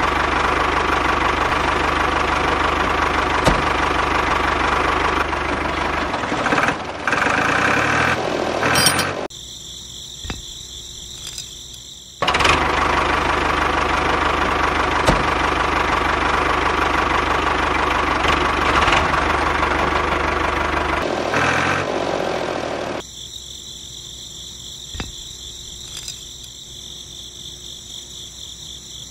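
A small motor running with a steady, busy mechanical rattle. It drops twice to a much quieter hum, about nine seconds in and again about twenty-three seconds in, then picks up again after the first drop.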